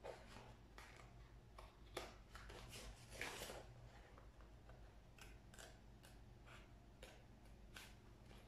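Faint snipping of small scissors cutting through a paper plate in short, irregular cuts, with one longer, louder cut about three seconds in.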